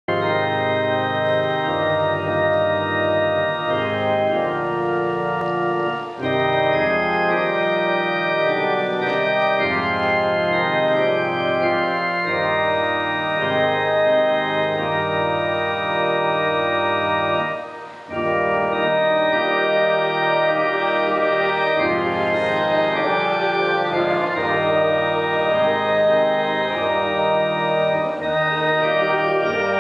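Church organ playing held chords in a slow sequence, with short breaks between phrases about six seconds in and just before eighteen seconds.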